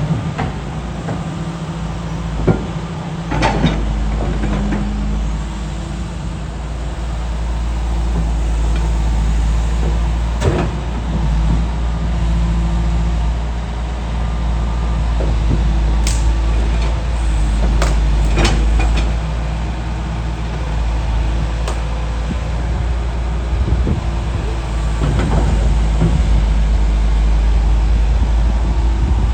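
A heavy diesel excavator engine running steadily with a deep rumble, with sharp metallic clanks every few seconds.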